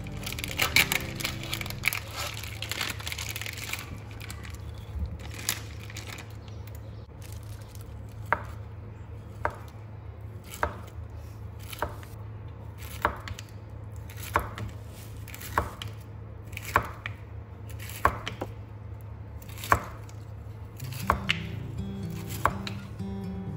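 A chef's knife chopping chicken franks into slices on a plastic cutting board: sharp knocks of the blade on the board about once a second, coming quicker near the end. In the first few seconds the franks' plastic packet crinkles as it is torn open.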